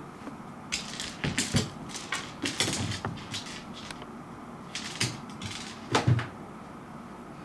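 A small hard dried persimmon seed clicking and skittering on a wooden floor as a cat bats it about with its paws: quick runs of light taps, in two clusters with a short lull between them.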